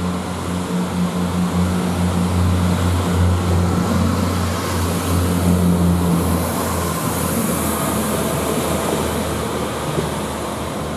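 Pacer diesel railbus passing close by: its diesel engine drones loudly, then fades after about six seconds, while the wheels on the rails add a hiss that swells as the carriages go by.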